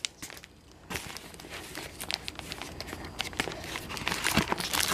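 Taped cardboard toy packaging being pulled and torn apart by hand, crinkling, crackling and tearing. It starts about a second in after a brief lull and keeps going.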